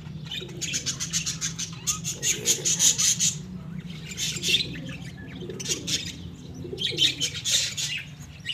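Domestic pigeons in a loft cooing, with several spells of rapid high chirping and wing fluttering. A steady low hum runs underneath.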